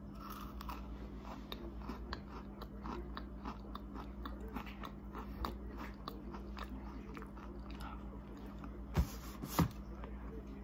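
Sweets being chewed: a steady run of small crunches, with two louder knocks about nine seconds in.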